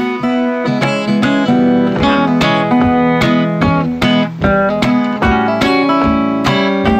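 Background music: acoustic guitar plucked in a quick run of notes.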